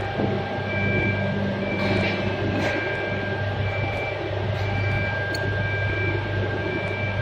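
Steady hum and high whine of powered-up workshop machinery, with a short high beep repeating about once a second. A couple of light knocks come about two seconds in.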